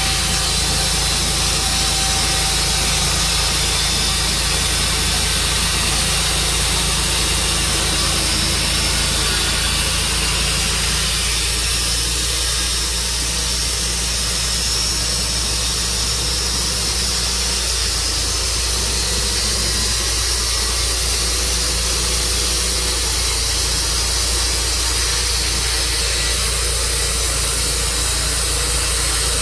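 Tru Cut sawmill's engine running steadily under load as the mill saws a cherry log, with a constant hiss over a steady low hum; the engine's note shifts about eleven seconds in.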